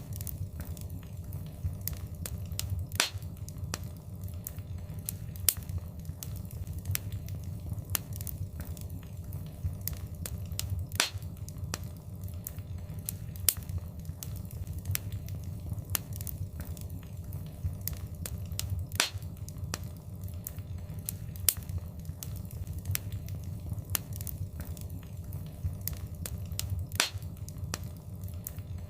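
Wood fire in a fireplace crackling: irregular sharp pops and snaps, a few much louder than the rest, over a steady low rumble of burning.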